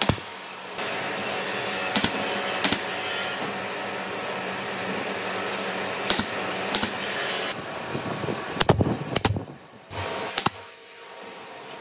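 Workshop noise: a steady machine hiss with scattered sharp knocks and clicks. The hiss stops about seven and a half seconds in, and a cluster of knocks follows about a second later.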